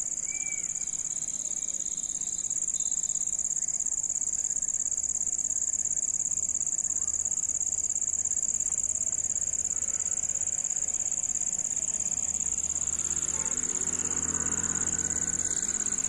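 Insects trilling in one steady, high-pitched, unbroken chorus, as at dusk.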